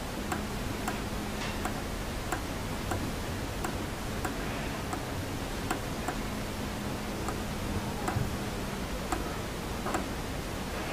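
Small push button on a digital charge controller clicked over and over, a light tick about every two-thirds of a second, as the set-point digits are stepped through.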